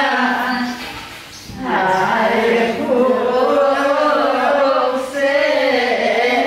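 A group of voices singing a chant-like song in unison, in long drawn-out phrases, with a short break for breath about a second in.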